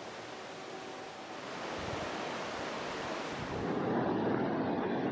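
Steady rush of a mountain stream, getting louder about two seconds in and louder and fuller again from about three and a half seconds in.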